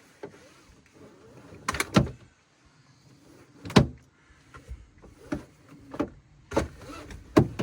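Car seatbelt being pulled out and let go, the inertia reel winding the webbing back in, with six or so sharp knocks as the metal latch plate strikes the trim. It is a slow-retracting belt being tested after treatment meant to help it retract properly.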